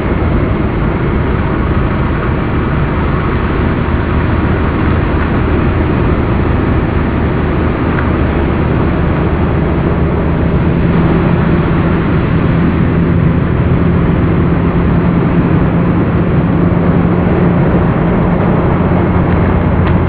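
Tracked feller buncher running under load, its engine and disc-saw felling head making steady machine noise. A deep hum runs throughout, and a higher hum joins it about halfway through.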